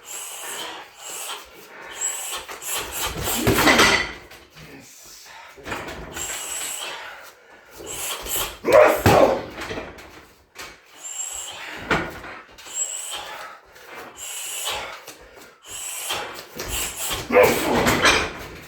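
Shin roundhouse kicks landing on a 60 kg heavy bag: four heavy strikes a few seconds apart, with smaller knocks between them.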